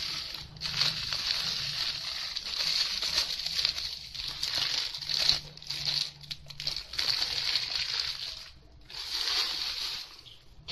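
Plastic bag crinkling as ground dried chilli flakes are shaken out of it into a clay mortar: a steady rustling hiss that stops briefly a few times.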